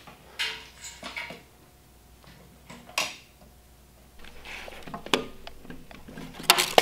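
Scattered light clicks, taps and short scrapes from handling a tape measure and pencil against a plywood panel in a steel frame, with a quick run of sharper clicks near the end.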